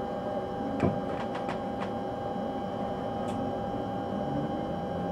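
Driver's cab of an electric train standing at a station: a steady electrical hum with a constant whine, and a few sharp clicks, the loudest about a second in and several smaller ones just after.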